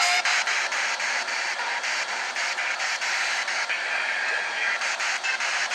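Radio static between FM stations: a steady hiss broken by frequent short crackles and dropouts as the receiver is tuned across the dial.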